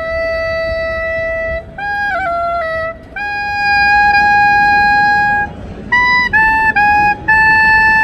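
Military band clarinets playing a slow melody together: long held notes, each a little higher than the last, joined by short quick phrases.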